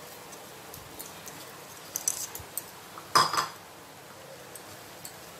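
Spatula clicking and scraping against a frying pan as stirring begins in grated coconut and roasting semolina: a few light clicks about two seconds in, then one louder knock just after three seconds.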